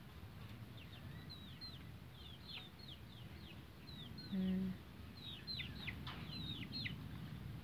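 Chicks peeping: a steady run of short, high cheeps, each sliding downward in pitch, with one brief low sound about halfway through.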